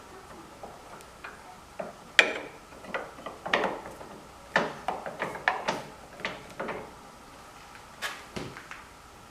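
Irregular clicks, knocks and clatter of metal parts and tools being handled and fitted while a table saw is reassembled, thickest in the middle with a last few knocks near the end.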